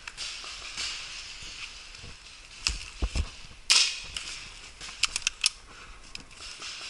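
Paintball marker shots: scattered sharp pops, the loudest a little past the middle, then a quick string of four or five about two-thirds of the way through.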